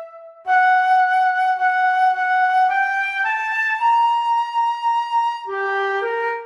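Transverse flute playing a slow melody solo. After a brief breath gap near the start, it holds a long note, steps upward through a few notes to a long high held note, then drops to lower, shorter notes near the end.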